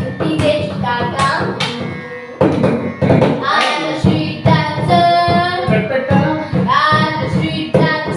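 A child singing a melody over a percussion-led instrumental accompaniment with a steady beat. The music dips briefly, then comes back in strongly about two and a half seconds in.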